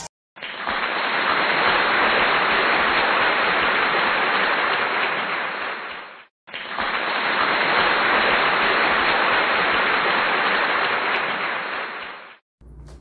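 A dense, even rushing noise, like an added sound-effect track, played in two stretches of about six seconds each, fading in and out, with a brief silent gap between them.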